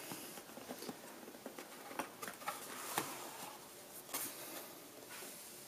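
Hard cardboard box being torn open along a knife-cut seam: faint scraping and rustling of card, with a few soft snaps.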